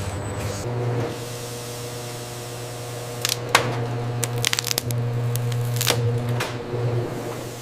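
A steady machine hum with a few sharp clicks and clatters about halfway through.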